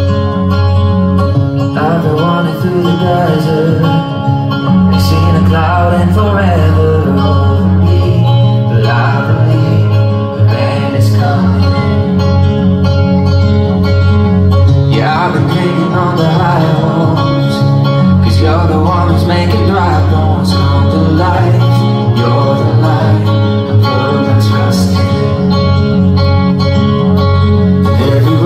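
Loud live band music with guitar over a steady bass line and beat, and a male lead singer's voice coming through a PA.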